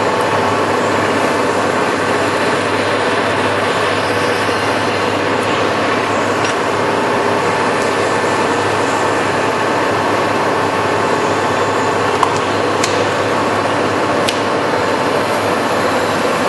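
Lodge & Shipley 19-inch by 30-inch Power Turn tool room lathe running under power, its headstock drive giving a steady mechanical hum with faint steady tones in it. A few light ticks come through in the second half.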